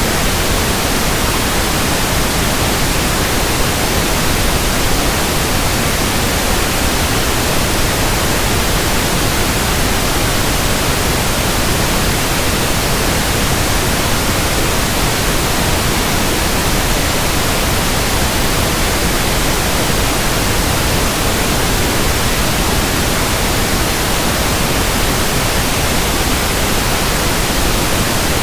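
Pink noise test signal, a steady even hiss across the whole range, used for measuring a sound system's frequency response.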